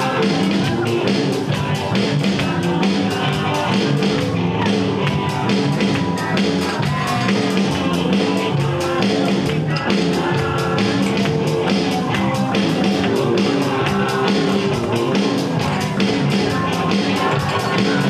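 Live band playing upbeat rock music with a steady beat.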